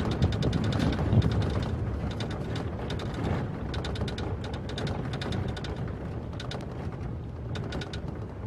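Pickup truck driving on a gravel dirt road, heard from a roof-mounted microphone: wind buffeting and tyre rumble, with a rapid scatter of small clicks and rattles throughout.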